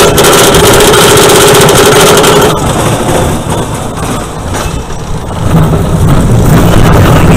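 Zamperla kiddie roller coaster climbing its chain lift: the lift chain clatters with a rapid, even clicking over a steady motor whine. About two and a half seconds in this stops abruptly, and the train's wheels roll along the steel track through the helix, with a low rumble building near the end.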